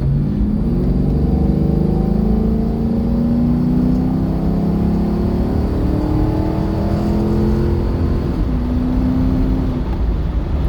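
Camaro Z28's LS1 V8, fitted with aftermarket heads, cam and intake, accelerating hard, its pitch climbing for about eight seconds, then dropping and holding steady before it fades. The owner suspects the engine is being starved of fuel pressure by its Walbro 255 fuel pump, run without a hotwire.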